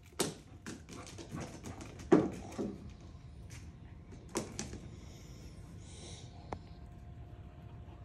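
Footsteps and scuffs on a concrete patio: a handful of sharp, irregular knocks in the first half, the loudest about two seconds in, then only a faint steady background.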